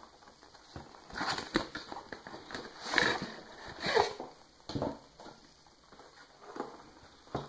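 Cardboard product box being opened and handled, with a hard-shell zippered carry case slid out of it: irregular scraping, rustling and light knocks, louder about three and four seconds in.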